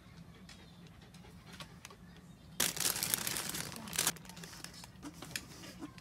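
A burst of rustling, crinkling noise lasting about a second and a half, midway through, with a few small clicks around it over a faint steady low hum.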